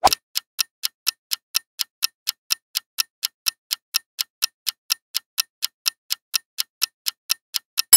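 Countdown-timer tick sound effect: an even train of sharp clock-like ticks, about four a second, while the answer time runs out. A bell-like chime strikes right at the end as the time is up.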